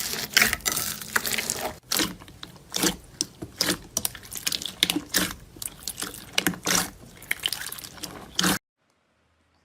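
Slime being squeezed and pressed, giving wet, sticky pops and crackles at an irregular pace. It stops abruptly near the end.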